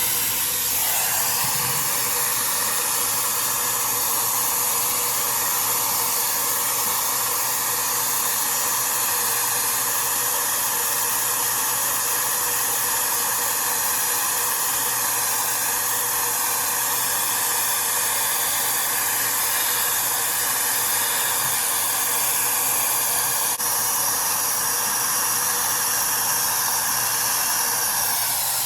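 High-speed motor of a 5-in-1 hot-air styler running with its rotating curling barrel fitted: a steady rush of air with a faint high whine, dropping away at the very end.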